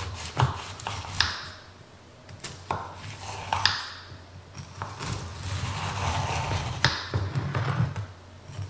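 Kitchen knife cutting through a pan of Rice Krispie treats, its blade tapping and clinking against the bottom of a glass baking dish, a handful of sharp taps with a short ring.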